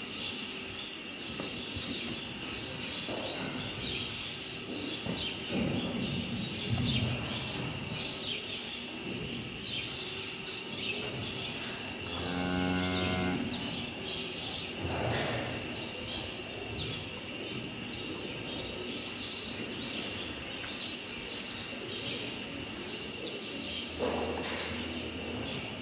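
Freshly calved Holstein cow mooing: one clear low moo about halfway through, with softer low calls a few seconds before, after it and near the end. Small birds chirp throughout over a steady high tone.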